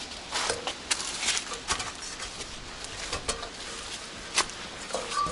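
Metal ladder being handled and moved one-handed, clanking and knocking in a series of sharp strokes, the loudest about four and a half seconds in.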